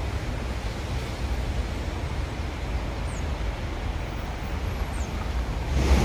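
Steady low rumble of street traffic from buses and cars on the road, growing louder right at the end.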